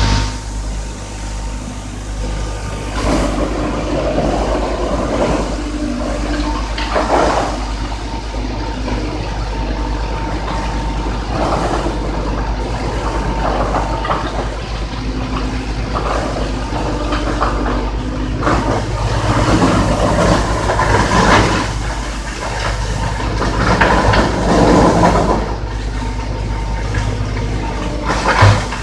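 Drum wood chipper running with a steady low hum, with irregular louder surges every few seconds as wood is fed in and chipped.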